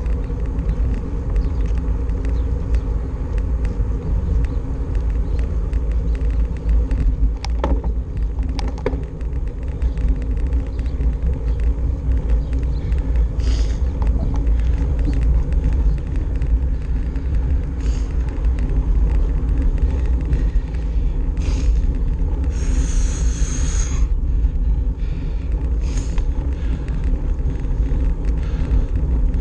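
Steady low rumble of wind buffeting a handlebar-mounted action camera's microphone, mixed with road noise from a road bicycle rolling along. A few faint clicks and a brief louder hiss come about three quarters of the way through.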